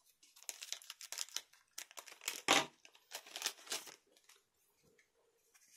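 Foil trading-card booster-pack wrapper crinkling and rustling as it is handled, in a run of short crackles; the loudest comes about two and a half seconds in, and it dies down over the last second or two.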